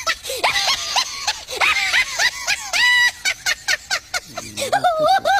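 A high-pitched, squeaky voice making quick rising-and-falling calls, several a second, like cartoonish snickering, with short clicks between them.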